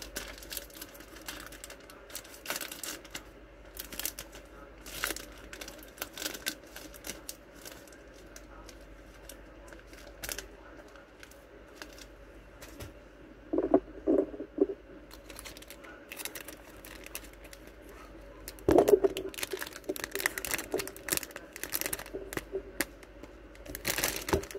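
Clear plastic packaging crinkling and crackling as packaged goods are handled, with scattered clicks throughout and a couple of louder bumps, one cluster about halfway through and one a little later.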